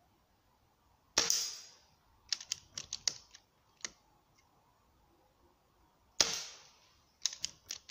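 Hatsan Galatian .22 pre-charged air rifle fired twice, about five seconds apart, each a sharp crack with a short tail. Each shot is followed within a second or so by a quick run of clicks.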